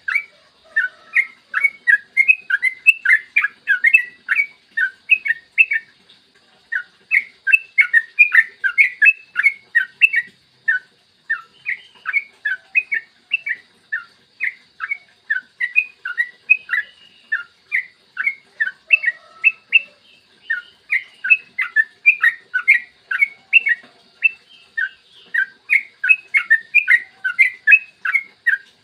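Yellow-vented bulbul (trucukan) singing long, rapid runs of short, clear chirped notes, about three to four a second, broken by brief pauses about six and eleven seconds in. A faint steady high hiss lies under the song.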